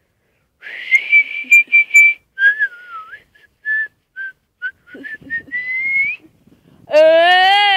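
A person whistling a tune: a few short high notes, then a wavering melody that dips and climbs to a higher note. Near the end a loud voice cuts in, holding a note that slides upward.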